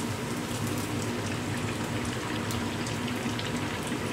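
Kandarappam (rice, urad dal and jaggery batter) deep-frying in hot oil in a kadai: steady sizzling with many small crackles.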